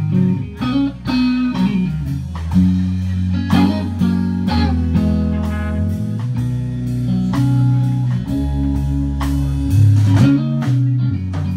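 A blues-rock trio playing live: electric guitar lines over bass guitar and a drum kit, with steady drum hits.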